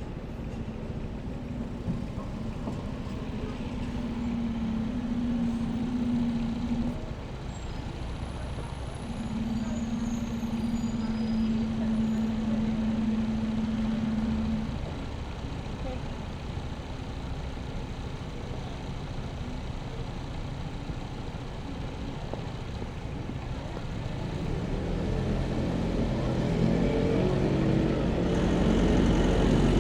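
Busy city street traffic ambience: motor vehicles running and passing, with a steady engine tone during the first half and a vehicle growing louder over the last few seconds.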